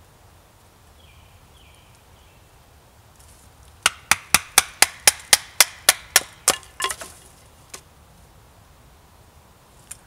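A wooden baton tapping the spine of a belt knife in quick light strikes, about four a second, driving the blade down through a thin maple stick to split it into kindling. The strikes begin about four seconds in and stop after nearly three seconds, with one more a second later.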